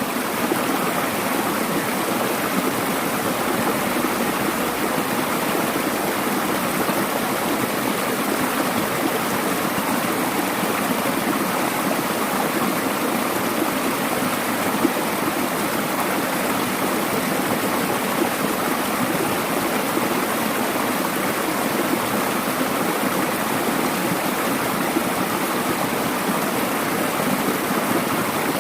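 Mountain valley stream rushing steadily over rocks.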